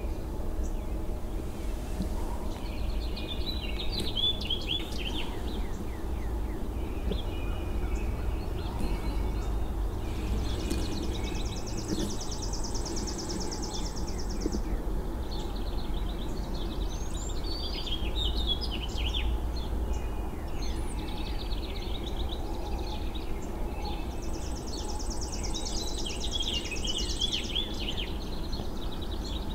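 Wild birds singing and chirping over a steady low rumble, with a fast, high trill held for about four seconds, twice.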